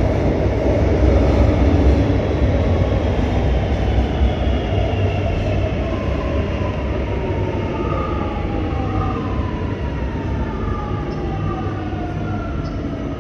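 Six-car metro train running into an underground station: a heavy rumble of wheels on rail, with the electric traction motors giving a whine that falls steadily in pitch from about the middle onward as the train slows.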